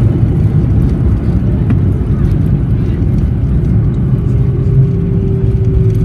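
Airliner cabin noise during landing: a loud, steady low rumble of engines and airframe, with a faint steady tone coming in about two-thirds of the way through and sinking slightly.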